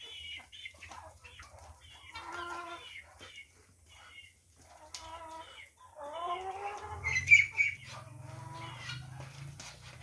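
Chickens clucking and calling in short repeated notes, loudest about seven seconds in.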